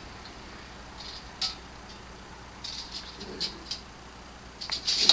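Scattered light clinks and rattles of metal parts being handled, with a quick cluster of clicks near the end.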